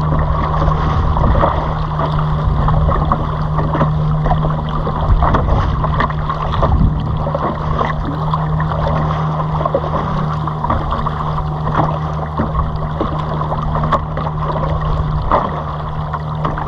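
Small boat outboard motor running at a steady, unchanging speed, with wind and water noise around it.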